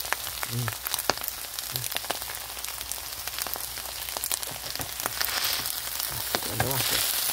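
Cheese-topped vegetable fried rice sizzling in a hot pan, a steady hiss with many small crackles and pops as the cheese melts and toasts. The sizzle grows louder about five seconds in.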